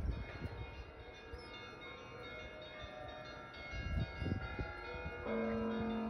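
Church bells ringing, several bells of different pitches sounding and overlapping. About five seconds in a louder, steadier set of tones comes in; two low thumps sound near the start and about four seconds in.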